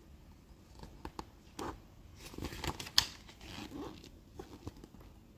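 Pages of a paper catalogue being turned by hand: a series of short rustles and swishes, with one sharp paper snap about three seconds in.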